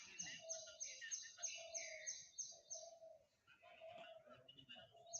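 Faint garden birdsong: one bird repeats a high chirp evenly about three times a second, with other bird calls lower down.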